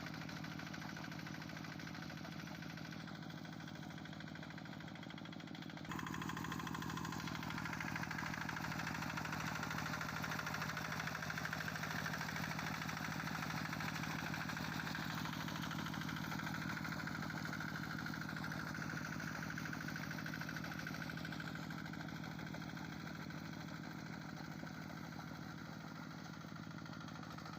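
Engine of a Quick G1000 two-wheel hand tractor running steadily, getting louder about six seconds in and then holding.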